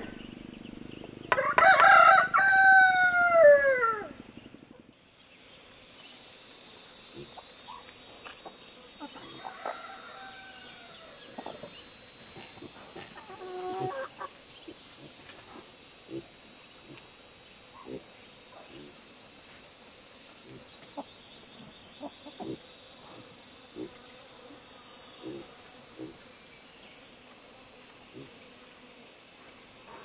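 A rooster crows once, loud, starting about a second in. From about five seconds in, a steady high insect drone goes on, with a few faint calls and scattered light taps as concrete blocks are set with a trowel.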